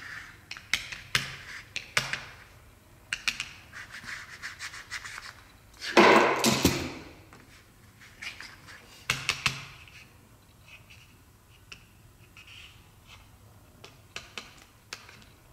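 Plastic fashion dolls being handled and moved on their stands: scattered light clicks and rubbing, with one louder scrape about six seconds in.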